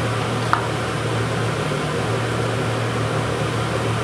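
A steady mechanical hum with an even whirring hiss, like a fan running, with one faint clink about half a second in.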